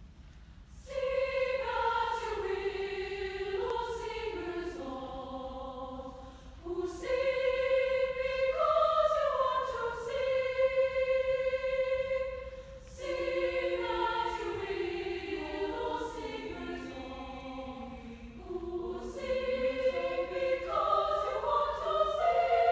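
Women's choir singing in several parts, in sustained phrases that break briefly for breath about every six seconds. The singing starts about a second in.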